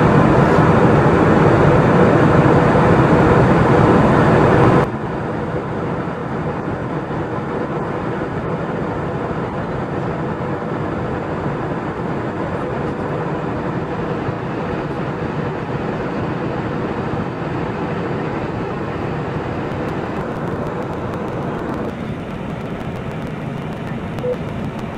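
Steady cabin noise inside an Airbus A320 in its climb, engine and airflow noise heard at a window seat. The level drops abruptly about five seconds in and then holds steady.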